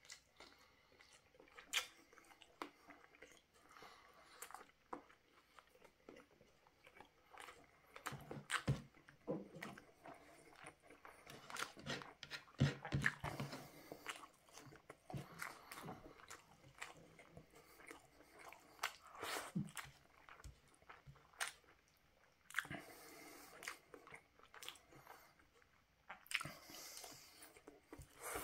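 Close-up eating sounds of a man chewing hand-fed mouthfuls of rice and glazed grilled chicken: irregular sharp clicks and smacks of the mouth.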